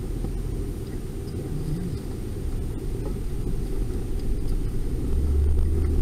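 A taxi's engine running, heard from inside the cab as a steady low rumble. About five seconds in, the low rumble grows stronger as the cab starts to pull away.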